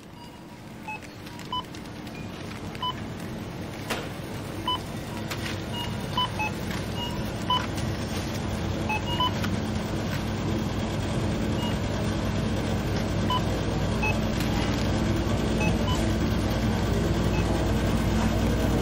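Short electronic beeps like supermarket checkout scanners, about twenty of them at irregular intervals, over a low hum that swells steadily louder.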